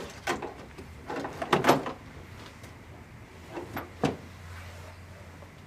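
Massage chair backrest being lifted and slid onto its seat base: a few knocks and short scrapes of the parts bumping together, the loudest cluster about a second and a half in and a last sharp knock about four seconds in.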